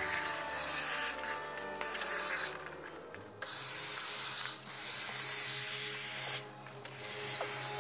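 Aerosol can of expanding spray foam hissing as it is sprayed through its straw, in several bursts with short stops between them.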